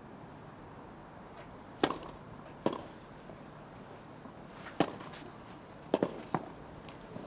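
Tennis ball struck by rackets in a rally: sharp pops at uneven gaps of about a second or two, with three in quick succession near the end, over a faint steady crowd hush.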